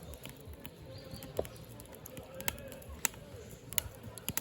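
Firewood burning in a Hillscam Firenado Large fire pit, crackling with sharp, irregular pops about once a second over a low, steady rumble.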